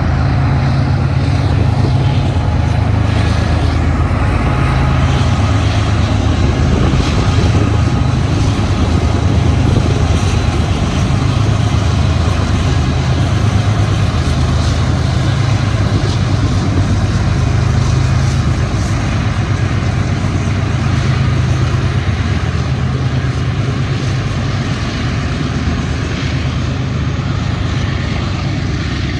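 BNSF diesel-electric freight locomotives hauling a double-stack container train up the Cajon Pass grade: a loud, steady low engine drone with rail and wheel noise over it, easing slightly near the end.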